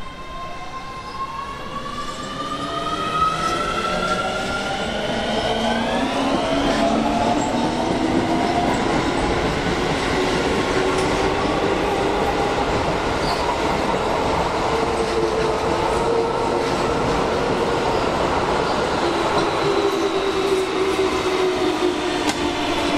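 Keio 7000 series electric train pulling away, its traction motors whining upward in pitch over the first six seconds or so as it gathers speed, then running on with steady rolling noise and a fainter motor hum.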